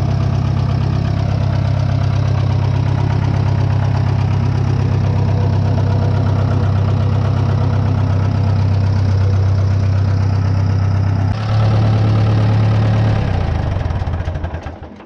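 Wisconsin VH4D four-cylinder air-cooled engine idling steadily as it warms up. About eleven seconds in its note shifts, and near the end it is shut off and runs down to a stop.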